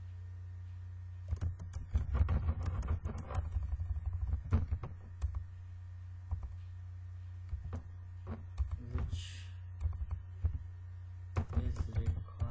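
Computer keyboard keys clicking as someone types, in irregular runs: a busy stretch from about a second in, scattered keystrokes in the middle, and another run near the end, over a steady low hum.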